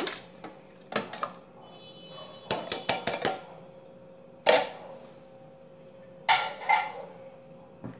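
Kitchen handling clatter around a blender: several separate sharp clinks and knocks of containers and utensils being moved and set down, the loudest about halfway through.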